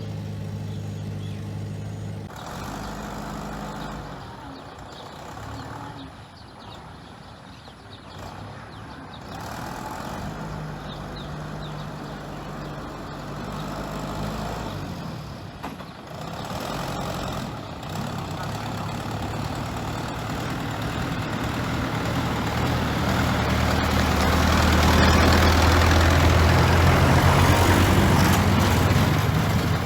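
Bulldozer's diesel engine running as it works, its note shifting with load and getting louder over the last several seconds.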